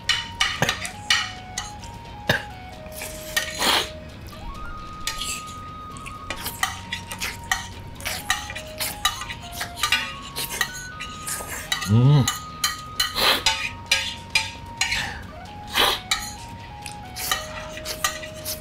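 Metal spoon rapidly scraping and clinking against a large ceramic plate as curry rice is shovelled up at speed, with many quick clicks throughout. A short rising vocal sound from the eater comes about twelve seconds in.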